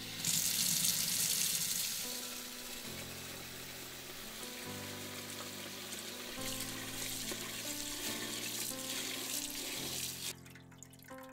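Kitchen tap running, its stream pouring into a bowl of long-grain sweet rice as the rice is rinsed. The rush is loudest in the first couple of seconds, then goes on more softly and stops about ten seconds in.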